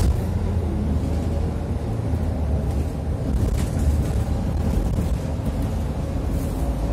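City bus moving, heard from inside near the doors: a steady low engine and road rumble with a faint steady hum above it.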